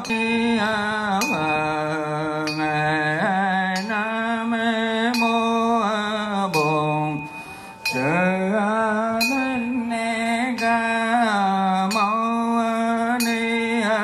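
A single voice singing a slow, melodic chant-like song, holding long wavering notes, over steady instrumental accompaniment with a soft beat about every second.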